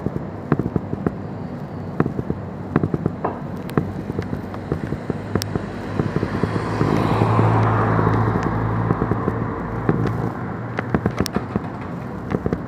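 A vehicle passes on the road: a low engine hum and tyre noise swell about six seconds in and fade after ten seconds. Scattered sharp crackles and clicks run throughout.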